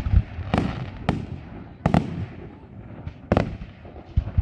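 Aerial firework shells bursting: a string of sharp bangs at uneven intervals, about eight in four seconds, each trailing off in a short rumble, some in quick pairs.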